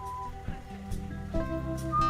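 Background music: a light melody over plucked guitar, with fuller chords coming in about one and a half seconds in.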